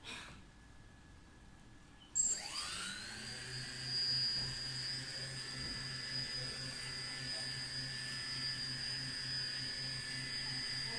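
Four brushless motors of an F450 quadcopter kit, with no propellers fitted, start up about two seconds in after a brief click: a high whine that rises quickly, then runs steadily.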